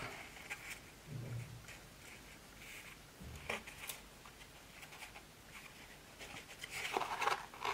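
Quiet handling noise: light rustling and scraping as fabric-covered cardboard and an elastic cord are worked with the fingers, with a soft click about three and a half seconds in.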